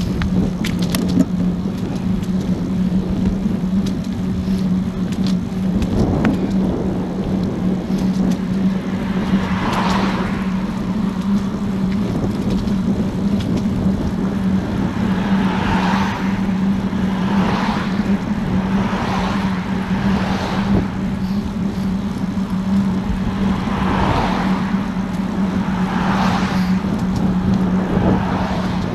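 Wind buffeting a bike-mounted action camera's microphone while cycling, over a steady low hum, with motor traffic passing on the road alongside: several cars swell up and fade away in the second half.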